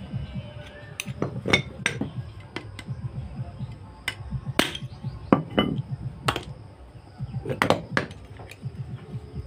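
Hammer blows on the steel yoke of a truck propeller shaft's universal joint while its cross is being changed: about a dozen sharp metallic strikes at uneven spacing, some close together in pairs, over a low background rumble.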